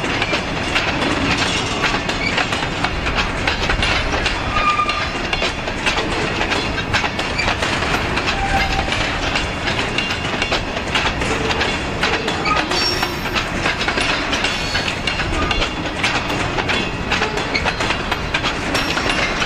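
Freight train of covered hopper cars rolling past close by: steady rumble and clatter of steel wheels over the rail joints, with a few short high squeals.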